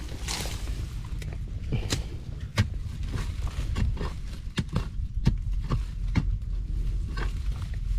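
About a dozen sharp knocks and thuds at irregular intervals, the strongest about two and a half and five seconds in, over a steady low rumble.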